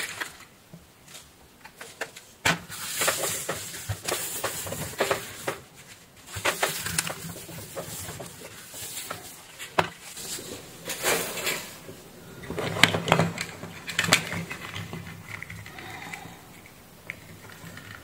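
Handling sounds: a paper tissue rustling and scattered clicks and knocks as a small plastic plug-in power adapter and its circuit board are handled and fitted back together.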